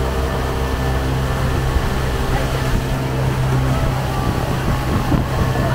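Motor of a small passenger launch running steadily under way, a low even drone, with water rushing past the hull.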